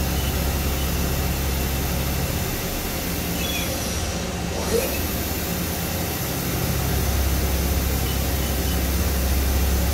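Steady low hum and hiss of a powered-up CNC vertical machining center. The low hum fades about two and a half seconds in and comes back stronger about seven seconds in, with a single light tick about halfway.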